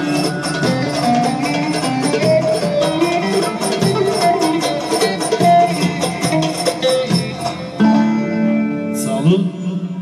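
Bağlama (Turkish long-necked lute) playing a folk tune with fast, even strumming and a moving melody; the tune ends about eight seconds in, leaving a held low note.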